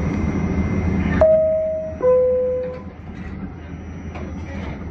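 Rumble of a New York City subway train that drops away about a second in, followed by a two-tone descending chime, a higher tone then a lower one, each just under a second long: the subway car's door chime.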